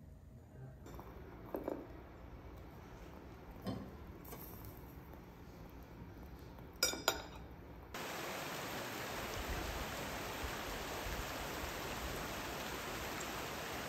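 A few soft clinks of tableware on a dinner table, the sharpest a quick pair, then from about eight seconds in a steady outdoor rushing noise.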